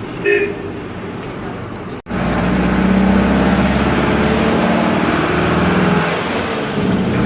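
Air-cooled Deutz F4L912 four-cylinder diesel of an Otokar M-2000 minibus running loud, heard from the cab while driving. The sound cuts out for an instant about two seconds in and comes back louder, with a steady engine note; it eases off briefly near six seconds and then picks up again.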